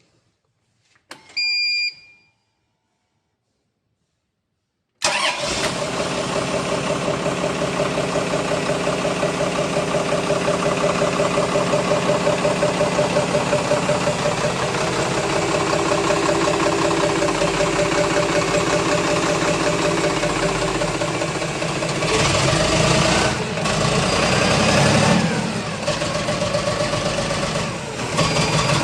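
A short electronic beep, then about five seconds in the Isuzu 6BG1 six-cylinder diesel engine of a VMAX 5-ton forklift starts suddenly and idles with a steady diesel clatter. Its note rises briefly a couple of times a few seconds before the end.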